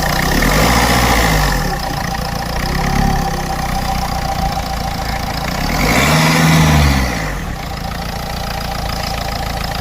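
Ford Fiesta diesel engine running at idle, newly started after a crank-no-start fault was fixed. It is revved briefly about three seconds in and again more strongly between six and seven seconds, each time settling back to idle.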